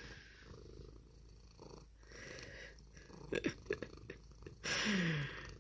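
Russian Blue cat purring softly close to the microphone. A few soft knocks come about three and a half seconds in, and a short rush of noise about five seconds in.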